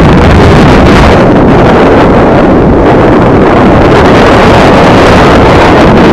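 Electric Compass 6HV RC helicopter in fast flight, its rotor and motor giving a steady loud rush that is heavily mixed with wind buffeting on the microphone.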